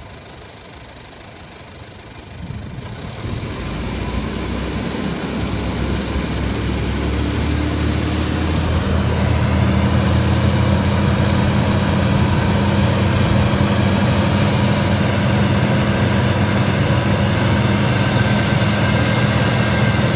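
Jeep Liberty CRD's 2.8-litre four-cylinder turbodiesel running at a steady speed. It grows louder from about two seconds in and then holds steady. Its exhaust still carries residual engine oil left by a failed turbo whose broken shaft pumped oil into it.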